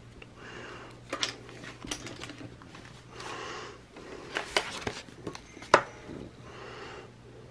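Sticker sheets and planner pages being handled close up: rustling with several sharp clicks and taps, the loudest a little before the end, and three soft breaths in between.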